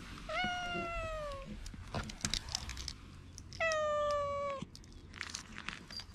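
A tabby cat meows twice, each meow about a second long. The first falls in pitch; the second, about three seconds later, stays nearly level. Faint clicks and rustling come between the meows.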